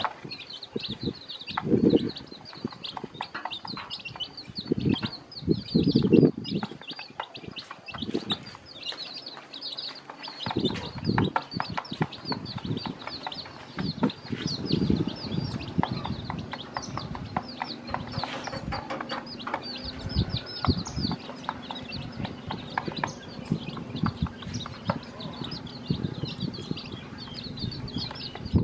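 Newly hatched chicks peeping constantly in quick, high cheeps, with the mother hen's low clucks coming in loud bursts every few seconds and light tapping as beaks peck at the feed dish.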